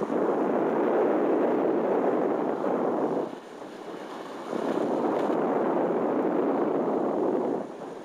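Wind rushing over a microphone mounted on a hang glider in flight, a loud rushing buffet. It eases a little after three seconds, surges back about a second later and eases again near the end.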